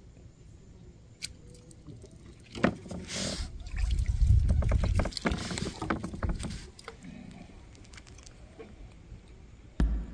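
Knocking and rumbling on a plastic fishing kayak as a small pacu is hooked and swung out of the water on a pole rod. The rumble is loudest a few seconds in, and a run of sharp clicks and knocks follows it.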